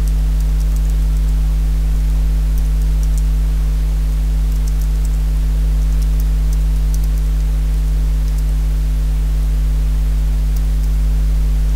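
Steady electrical hum with its buzzing overtones, with a few faint keyboard clicks scattered through as a command is typed.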